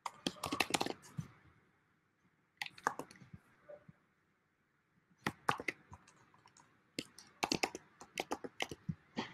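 Typing on a computer keyboard: four short bursts of rapid keystrokes with pauses between them.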